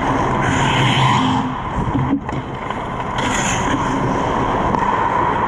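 Skate blades scraping and carving on rink ice during play around the goal, over a steady hum. Two louder hissing scrapes come about half a second and about three seconds in.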